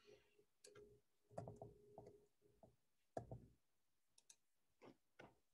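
Faint, irregularly spaced clicks of computer keyboard keys as text in a field is deleted and retyped.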